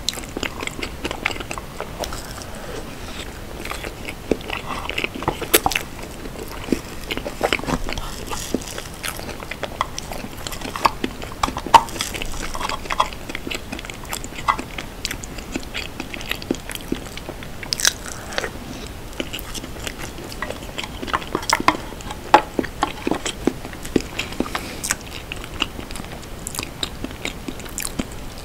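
Close-miked eating of a soft cream dessert: irregular wet chewing and mouth sounds, with a metal spoon clicking and scraping against a clear cup.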